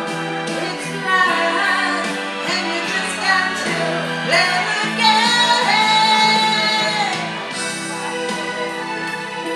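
A woman singing into a handheld microphone over instrumental accompaniment, holding one long note in the middle that dips at its end.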